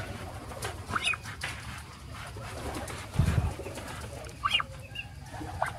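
Brooding Muscovy duck hen giving a low, soft call from her nest about three seconds in, with a couple of short rising peeps and straw rustling as a hand tucks an egg back under her.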